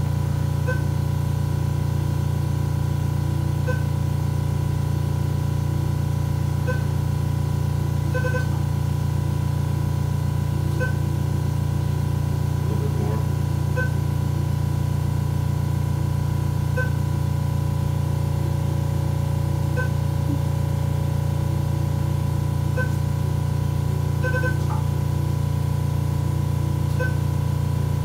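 Radiofrequency treatment console beeping once about every three seconds over a steady low hum and a faint steady tone, while a nasal treatment is delivered. There is a quick triple beep about eight seconds in and a double beep near the end.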